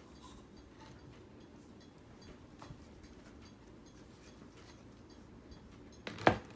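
Quiet room tone with a few faint clicks, then one sharp, loud knock near the end, like an object set down hard or tapped on a table.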